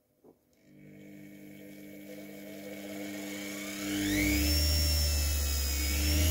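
Washing-machine motor running on 220 V mains through a speed controller, spinning up as the knob is turned. A whine rises steadily in pitch and volume, then holds at speed over a strong low hum for the last couple of seconds.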